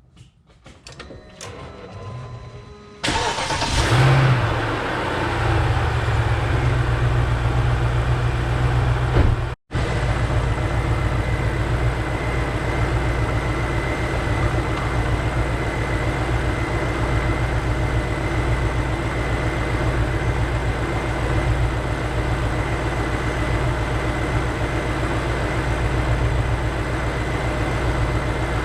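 A few faint clicks, then a BMW engine starts about three seconds in, flares briefly and settles into a steady idle.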